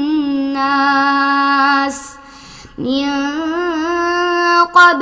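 A woman's voice reciting the Quran in melodic tajweed style, holding long drawn-out notes. She breaks off about two seconds in for a short breath, then carries on with another long sustained phrase.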